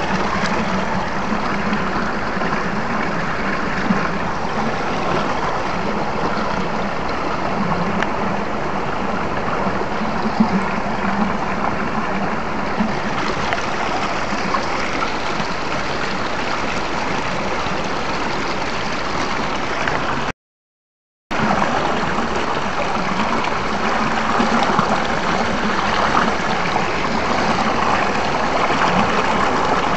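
Mountain stream rushing and splashing over boulders in a steady wash of water noise. The sound cuts out completely for about a second around twenty seconds in.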